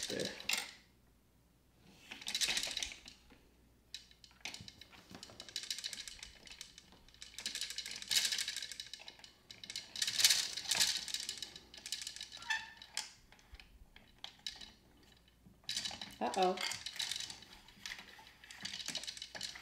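Plastic gears of a Downspin game unit being twisted with its key, clicking and rattling, with small plastic tokens clattering down through the gears. The clatter comes in several short spells with quiet gaps between them.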